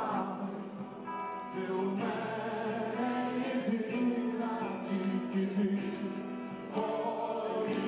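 A crowd singing together in long held notes, like a choir.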